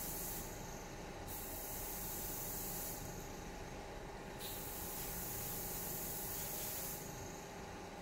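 Hiss of spraying air coming in three bursts that start and stop cleanly, the last and longest lasting about three seconds. A faint steady hum runs underneath.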